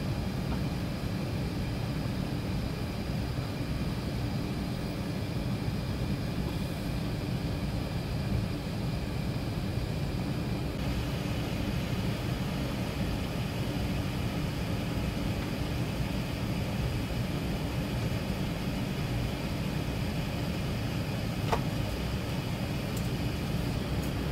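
Steady low rumble inside the cabin of an Airbus A380 as it taxis, with faint steady tones above it. A single faint click sounds near the end.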